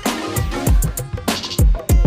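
Background music with a steady beat: deep kick drums that drop in pitch, with crisp hi-hat ticks over them.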